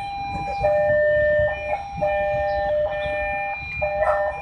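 Level crossing warning alarm sounding: an electronic two-tone chime alternating between a higher and a lower note, about a second each, signalling an approaching train. A low rumble of traffic and railway noise runs underneath.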